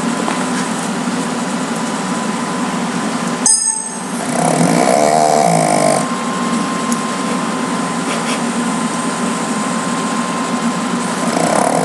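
A pet snoring steadily, with a louder snore about four seconds in and another starting near the end. A sharp click comes just before the first loud snore.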